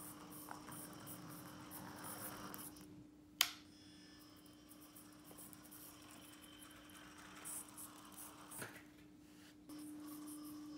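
Faint whirring and scratching of a micro RC car's tiny electric motor and gears as it drives across a tabletop mat, with a sharp click about three and a half seconds in and a smaller one near the end.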